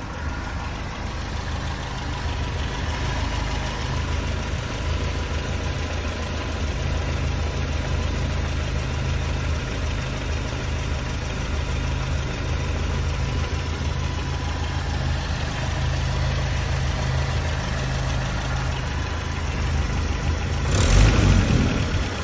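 Land Rover Series 3's 2.25-litre four-cylinder petrol engine with a Weber carburettor idling steadily under an open bonnet. Near the end the throttle is opened by hand and the engine revs up briefly.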